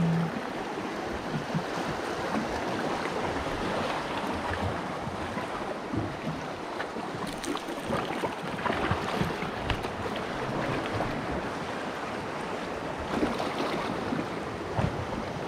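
Sea waves washing against a rocky shore, a steady rushing wash with a few faint clicks.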